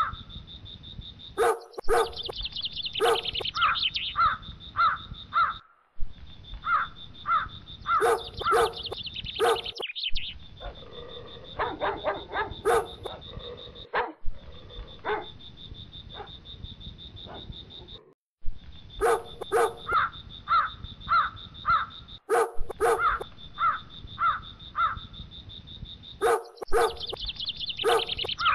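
Crows cawing in a steady series of calls, about two a second, with a dog barking for a couple of seconds near the middle. A steady high tone runs underneath.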